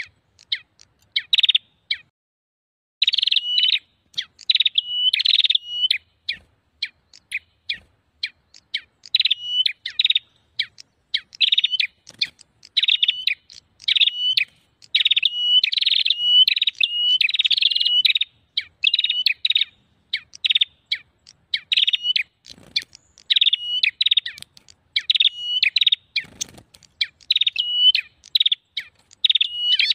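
Prenjak songbird lure call: loud, high-pitched chirping phrases repeated over and over with only short breaks, the agitated 'ribut' calls played to draw in wild prenjak.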